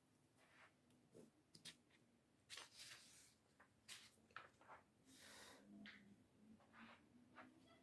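Near silence, broken by faint scattered rustles and clicks several times a second.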